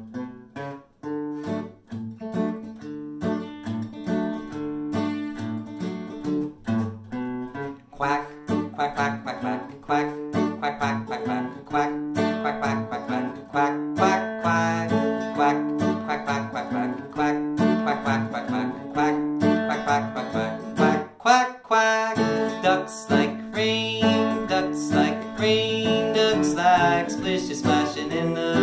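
Acoustic guitar strummed in a steady rhythm, starting suddenly. From about eight seconds in, a man's singing voice joins the guitar.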